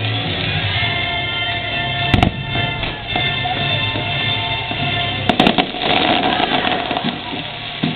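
Aerial fireworks bursting over show music: one sharp bang about two seconds in, then a quick run of three bangs about five seconds in, with sustained musical chords under them.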